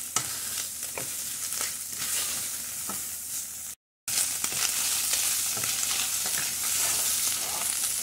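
Diced pork chicharrón sizzling in a stainless steel pot, the water cooked off and the pork starting to fry in its own rendered fat. A wooden spoon stirs it, with frequent short scrapes and knocks against the pot. The sound drops out briefly about four seconds in and returns a little louder.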